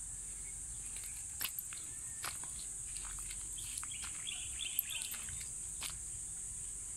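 A steady high-pitched drone of insects, with a bird chirping a few times about halfway through and scattered light crunches of footsteps on gravel.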